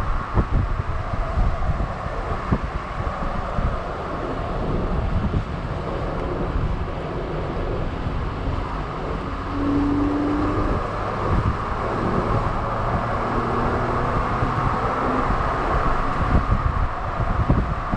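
Wind buffeting a camera microphone held out the side window of a moving Jeep Rubicon, over the Jeep's steady road and engine noise.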